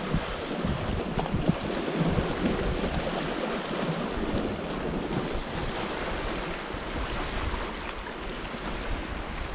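Wind gusting on the microphone over the steady wash of small waves on a rocky shore.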